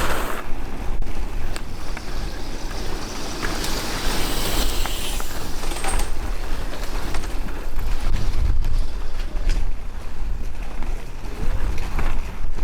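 Wind buffeting the microphone in a loud, uneven low rumble, with a few sharp clicks and a haze of outdoor noise.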